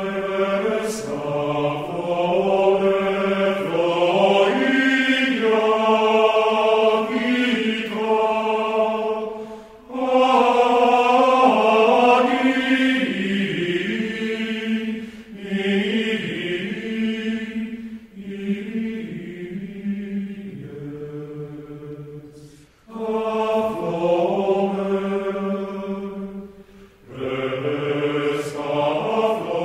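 Voices chanting a slow, plainchant-style sacred melody of held notes, sung in long phrases with short breaks between them.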